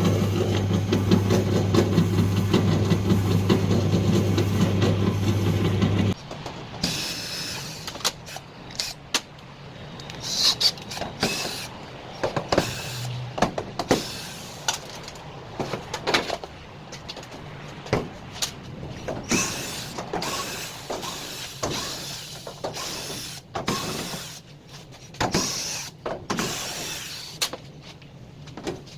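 Electrolux 6 kg clothes dryer running with a loud, steady hum, which the repairer puts down to a broken fan blade. It cuts off suddenly about six seconds in, and scattered knocks and clicks follow.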